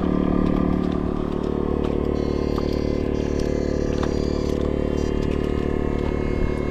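A steady mechanical drone made of a stack of even tones, unchanging in pitch, with a few light clicks and scrapes over it.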